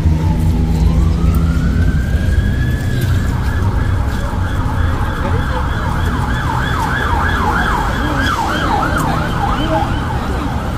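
An emergency vehicle siren sounding on the road: a slow wail that falls and then rises, switching about four seconds in to a fast yelp of roughly three or four sweeps a second. Road traffic rumbles underneath.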